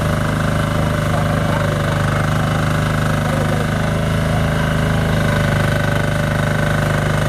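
Small engine running steadily at a constant speed.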